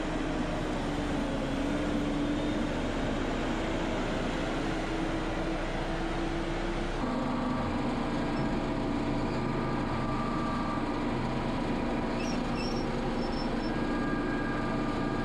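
Farm machinery engines running steadily, tractors and silage equipment working the bunker. The sound changes abruptly about halfway through.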